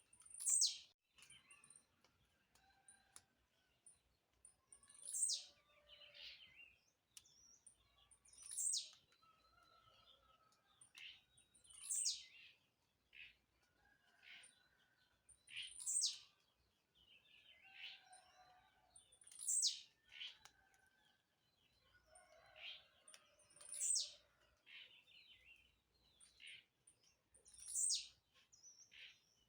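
Blue-black grassquit (tiziu) singing: its short, buzzy 'tiziu' song, a single note sliding steeply down in pitch, repeated eight times at intervals of about four seconds. Fainter chirps from other birds fill the gaps.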